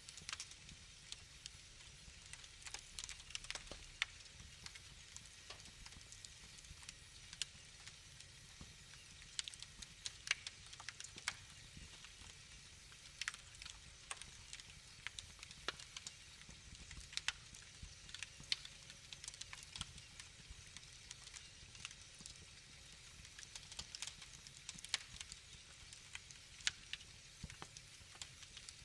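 Wood fire in a fireplace crackling, with irregular sharp pops and snaps over a soft hiss.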